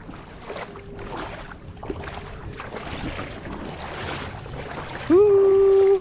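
Steady rush of surf and wind at the shoreline. Near the end comes a loud, steady held note, about a second long, that rises briefly at its start and is louder than the surf.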